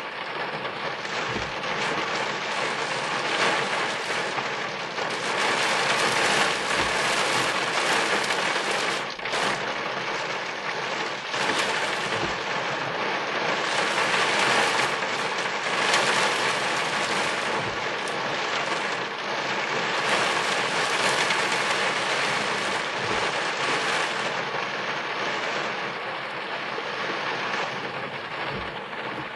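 Steady rain drumming on a car's roof and windscreen, heard from inside the car during a thunderstorm.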